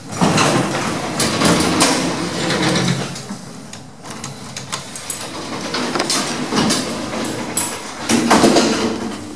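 Lift in operation: its doors slide with a rumble, with mechanical clicks and knocks along the way, and a second loud surge of door or machinery noise near the end.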